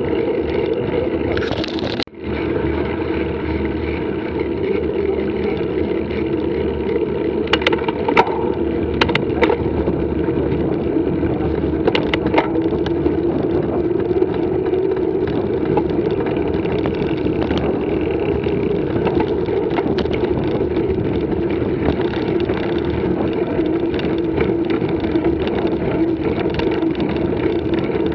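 Mountain bike riding noise: a steady rush of tyre rolling and wind on the microphone as the bike goes from a paved lane onto a gravel track, with a few sharp clicks and rattles about a third of the way in.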